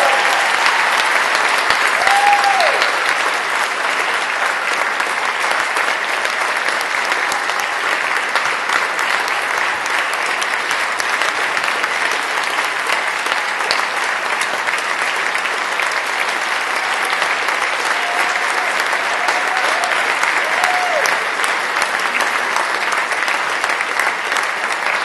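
Audience applauding steadily after a jazz band performance, with a few short cheers, once near the start and a few times about three quarters of the way in.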